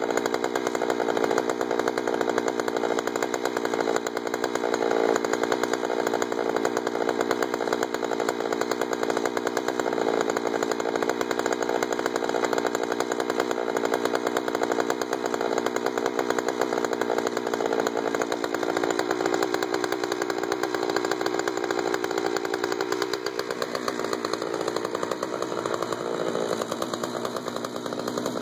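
Jonsered 2091 93 cc two-stroke chainsaw held at full throttle, ripping a pine cant lengthwise in a chainsaw mini mill with low-profile rip chain, running steadily under load. Its note shifts and drops slightly in loudness in the last few seconds.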